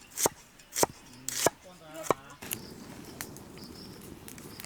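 Knife chopping on a cutting board: four even, sharp strokes about 0.6 s apart, stopping a little after two seconds in.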